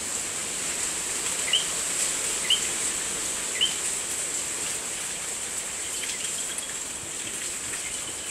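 Steady rush of tropical-storm wind with a constant high-pitched whine over it, and three short rising chirps about a second apart in the first few seconds.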